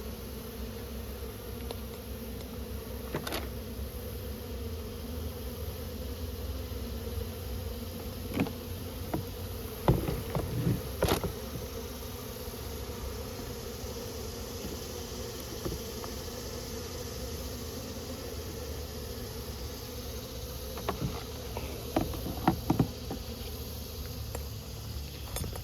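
Honeybees buzzing steadily around an opened hive, with a few scattered knocks and clicks, the loudest about ten seconds in and a cluster near the end.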